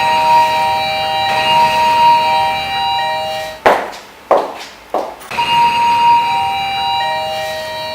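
Sustained steady electronic tones at three pitches stepping downward and overlapping, the pattern played twice. Three sharp knocks break it in the middle.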